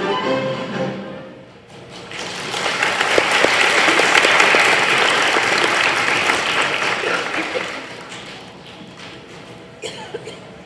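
A children's choir's song ends in its first second, then an audience applauds for about six seconds, the clapping swelling and then fading away. A single knock near the end.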